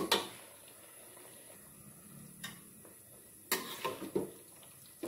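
Metal spatula stirring in an aluminium wok, scraping and knocking against the metal. There is a sharp clack at the very start, another about two and a half seconds in, and a cluster of knocks and scrapes around three and a half to four seconds.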